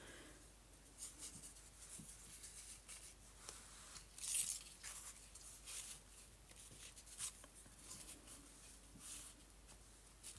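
Paper rustling and rubbing as torn paper scraps are handled, laid on a journal page and pressed flat by hand, in short scratchy strokes with a louder rasp about four and a half seconds in.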